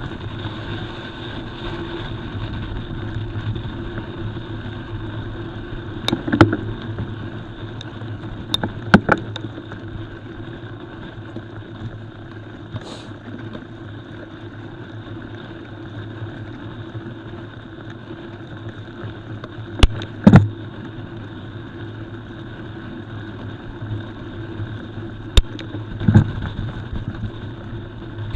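Mountain bike rolling fast over a gravel forest road: a steady rumble of tyres and wind, broken about six times by sharp clacks as the bike jolts over bumps.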